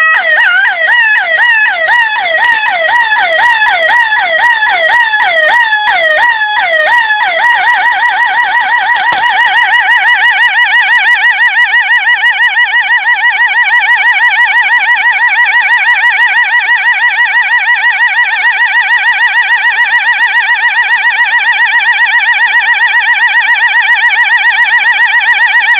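Electronic police siren generated by a homemade PIC microcontroller kit. It runs as a fast repeating sweep up and down in pitch, then switches about seven seconds in to a much quicker warble.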